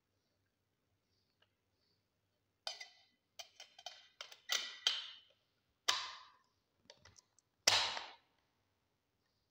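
Stamped steel dust cover of a Type 56 (AKM-pattern) rifle being fitted over the recoil spring guide and pressed down onto the receiver: a run of sharp metal clicks and clacks, with the loudest snap near the end as the cover seats.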